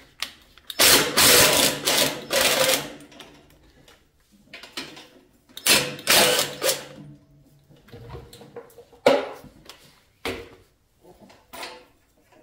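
Cordless impact driver running in bursts as it backs the bolts out of an exhaust clamp: a burst of about two seconds, another of about a second, then a short one about nine seconds in, followed by light metal clinks as the clamp is worked loose.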